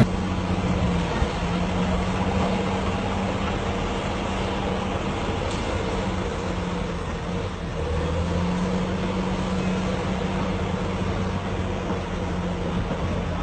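A heavy vehicle's engine running steadily at an even pitch.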